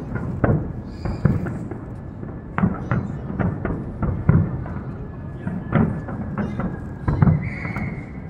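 Fireworks going off in irregular sharp bangs and thuds, one after another, with a thin steady high whistle near the end.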